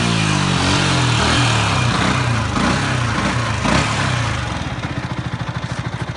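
Yamaha R125's single-cylinder four-stroke engine on its stock exhaust, its revs dropping back from a rev with a couple of small blips, then settling into a steady, evenly pulsing idle near the end.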